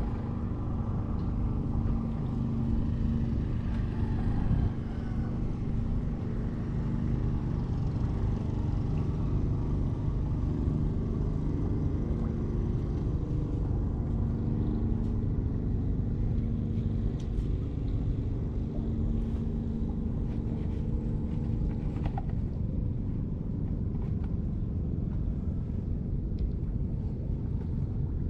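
A motor engine running at a steady speed, a constant low rumble with a steady hum.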